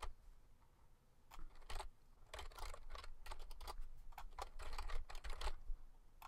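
Typing on a computer keyboard: quick, irregular key clicks that start about a second in.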